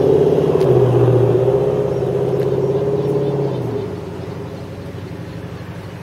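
A motor vehicle's engine running close by, a steady low hum that drops away about four seconds in.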